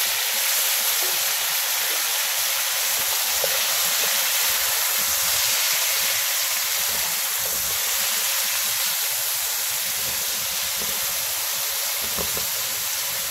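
Eggplant cubes freshly added to potato wedges, sizzling steadily in hot oil.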